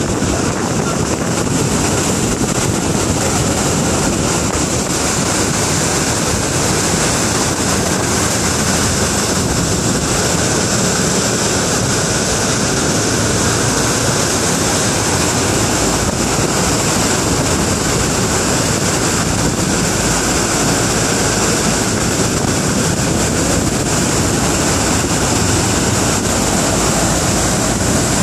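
Steady, loud rush of wind on the microphone and sea water churning past a moving boat, with its wake foaming behind.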